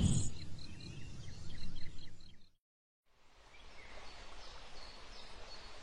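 Countryside ambience sound effect: a steady background hiss with small birds chirping, a quick run of high chirps in the first couple of seconds. It drops to dead silence for about half a second, then a quieter ambience with a few faint chirps comes back.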